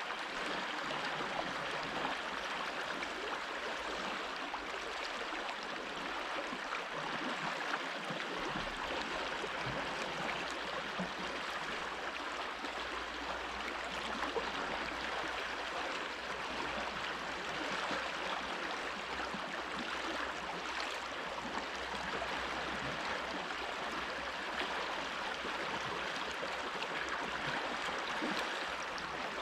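Water stream running steadily, an even rushing flow.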